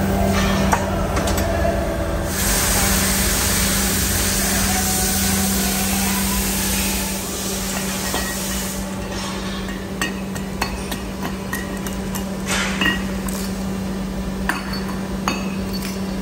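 A steady machine hum. Over it, a loud hiss lasts about six seconds and cuts off sharply. Then comes irregular sharp metallic knocking and clinking as a hand hammer strikes cast aluminium motorcycle wheel hubs to knock the leftover casting scrap off them.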